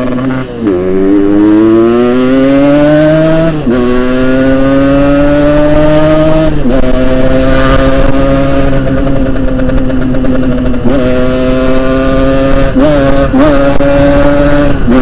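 Yamaha RX-King 135cc two-stroke single-cylinder motorcycle engine accelerating while riding off: its note rises, drops sharply at a gear change about three and a half seconds in and again about six and a half seconds in, then holds a steady cruise with a few brief dips in the throttle near the end.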